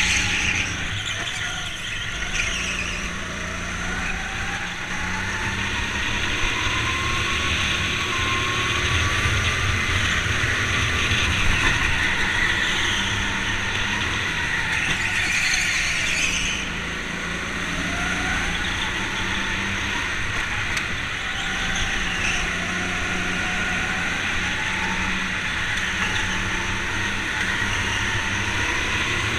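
Onboard sound of a Sodi rental go-kart driven at speed, its motor's pitch rising and falling again and again as it accelerates out of corners and slows into them, over a steady noise of the running kart.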